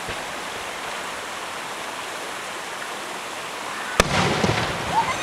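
Steady hiss, then about four seconds in a single sharp firework bang followed by about a second of crackling.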